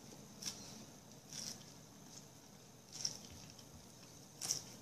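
Faint eating sounds close to the microphone: four short, crisp chewing crunches at irregular intervals.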